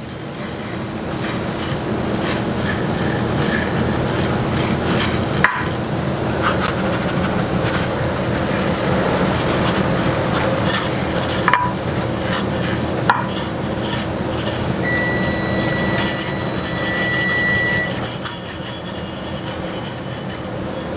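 Uncooked brown rice being spread and pushed around in a casserole dish, with a steady scraping and grains rattling, plus scattered small clicks of the utensil against the dish.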